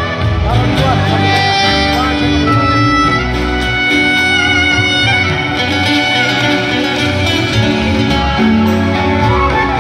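Live pop band music with long held melody notes over a steady bass line.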